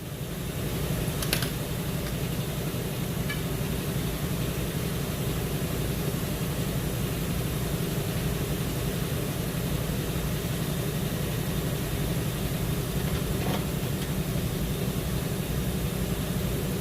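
A motor running steadily with a low hum. It builds up over the first second, with a single click shortly after.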